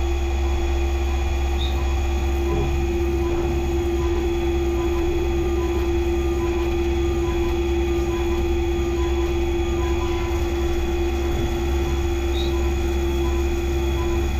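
Skyfire SVM-2 CNC vertical mill cutting an aluminum block: a steady whine of the cutter at one pitch over a low constant rumble, cutting off right at the end.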